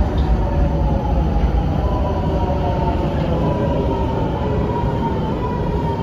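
Metro train pulling into an underground station: a loud, steady low rumble of the carriages rolling past, with the electric whine of the train's motors running through it as it slows to a stop.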